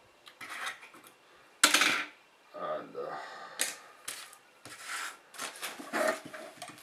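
Small screws and plastic drone parts being handled on a workbench: a series of light clicks and taps, with rustling of a small plastic zip bag. The loudest rustle comes about two seconds in.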